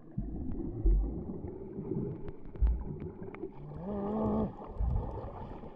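Muffled underwater sloshing with a couple of low thumps, then a snorkeler's short excited grunt, rising in pitch, about four seconds in.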